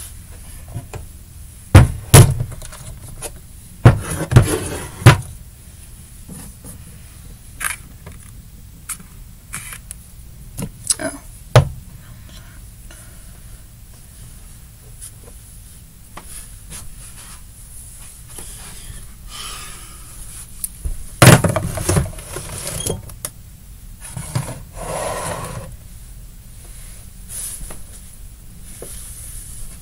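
Household objects such as plastic bottles and containers being picked up, moved and set down: scattered knocks and thumps with some rustling. The loudest thuds come about two seconds in, around four to five seconds in, and again around twenty-one seconds in.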